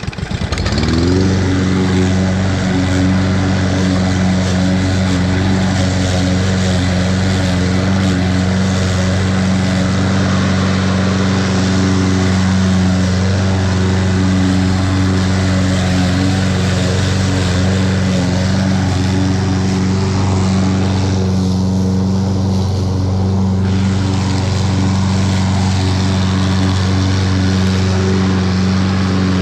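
Toro 21-inch walk-behind lawn mower's single-cylinder engine starting up, rising to speed within the first second and then running steadily at full throttle.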